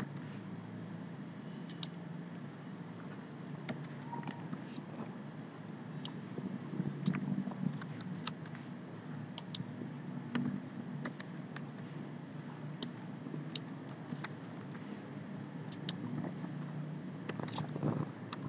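Computer keyboard keystrokes and mouse clicks, scattered and irregular, over a steady low hum.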